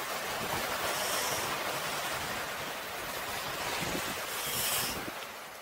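Small sea waves washing and fizzing over flat limestone rocks into a shallow cove, with two louder surges of foam, about a second in and again near the end, before the sound fades out.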